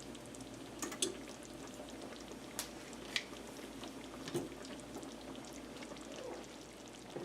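Onion gravy simmering in a pan with the Salisbury steaks, a steady low bubbling with a few scattered short pops.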